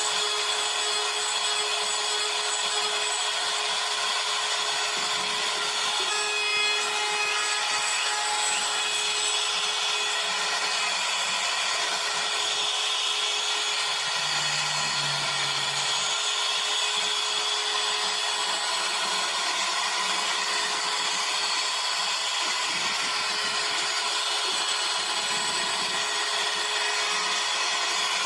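CNC router spindle cutting wood: a steady whine with a constant tone under a dense hiss of the bit carving, unbroken and even in level throughout.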